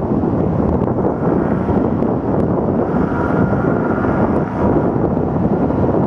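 Paramotor engine running at idle, mixed with wind buffeting the microphone in a steady, loud rush.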